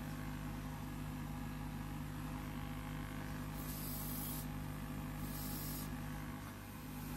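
Steady low electrical hum under a constant hiss, with two short, faint, high hisses about halfway through.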